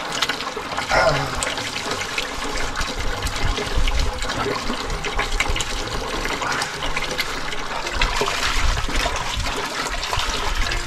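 Water running and splashing steadily over hair as it is being rinsed.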